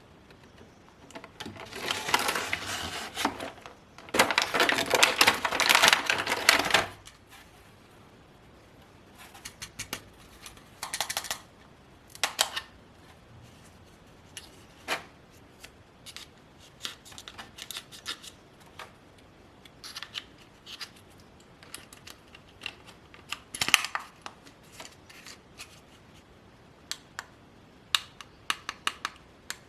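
Toy packaging being handled: two stretches of rustling and crinkling in the first seven seconds, then scattered light clicks and taps.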